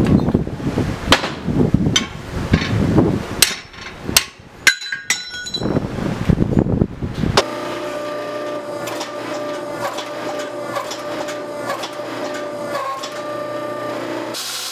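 Irregular knocks and clanks of steel being handled and struck, with a few ringing metallic clinks about five seconds in. Then, from about seven seconds, a steady motor-and-pump hum with a fixed whine: a hydraulic forging press running as it squeezes the hot billet.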